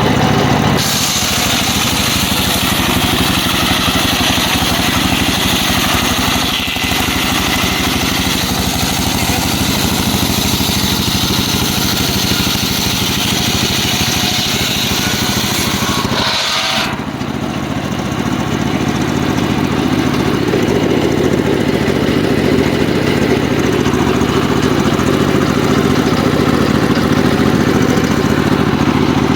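Engine of a homemade circular sawmill running steadily, with a loud hiss as the blade rips through a mahogany log; the hiss stops suddenly about 17 seconds in, and the engine keeps running.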